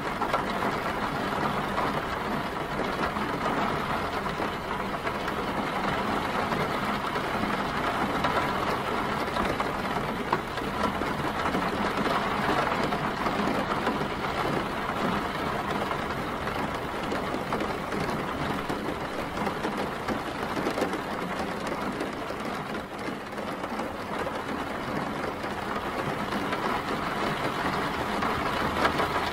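Steady rain pattering on an umbrella, over the low rumble of city traffic and idling engines.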